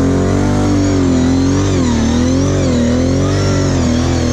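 Kawasaki KFX 700 quad's V-twin engine running hard under throttle through mud, its pitch wavering up and down as the revs rise and fall.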